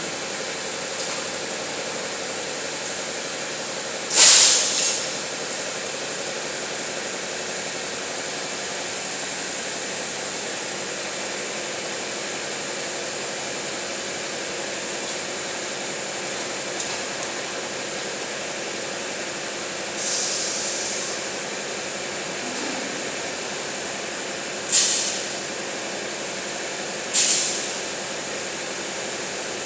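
Industrial machinery of a windshield glass bending furnace line running with a steady hiss and a faint high whine. Short bursts of loud hissing break in four times: about four seconds in, around twenty seconds, and twice near the end.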